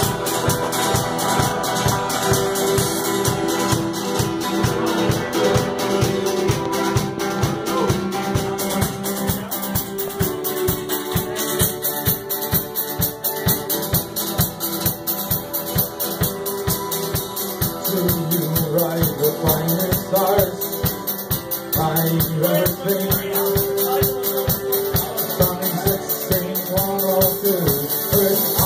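Celtic rock band playing live: a drum kit keeps a fast, steady beat under electric and acoustic guitars, with a tin whistle on the melody.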